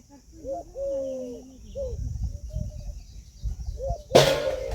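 Peahen giving a run of short honking calls that bend up and down in pitch, then a brief, loud harsh burst near the end.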